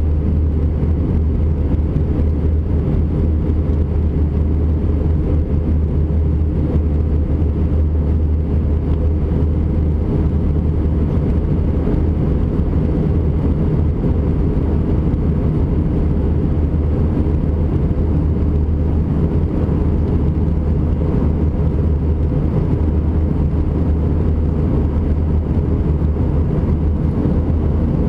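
Steady cabin noise of an Airbus A320-200 in flight, heard from inside the cabin at a window seat over the wing: engines and rushing air make an even, deep drone that does not change.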